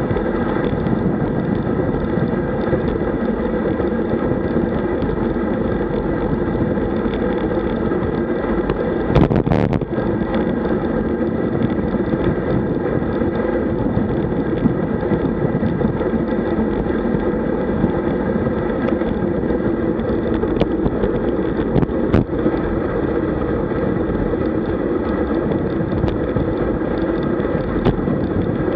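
Steady rush of wind over the microphone of a camera on a road bike moving at about 48 km/h, mixed with tyre and road noise. A short knock comes about nine seconds in and another about twenty-two seconds in.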